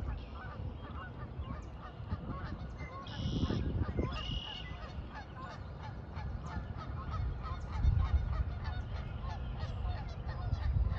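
Sandhill cranes calling, a run of repeated rolling, honking call notes, over a low rumble.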